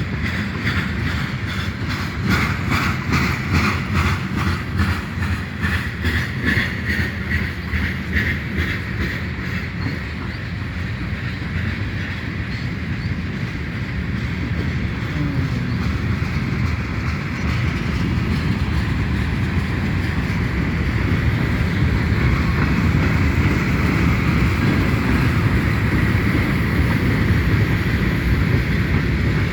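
Freight cars of a passing mixed train rolling by with a steady rumble. For the first ten seconds or so, rapid, regular clicking of the wheels over rail joints runs through it; after that it settles into an even rumble.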